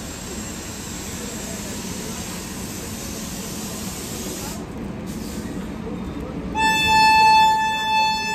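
A train horn sounds one loud, steady blast starting near the end, over a steady rumble of train and station noise.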